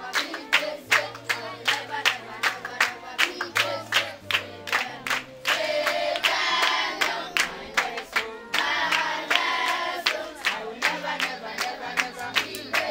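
A group of children singing and clapping in time, with steady rhythmic hand claps about two to three a second and low held bass notes underneath. The singing grows loudest in the middle.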